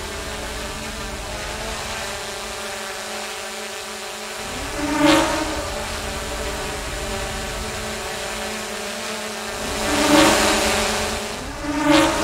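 Quadcopter drone propellers buzzing steadily, swelling into loud whooshes as the drone sweeps past about five seconds in, around ten seconds, and again near the end.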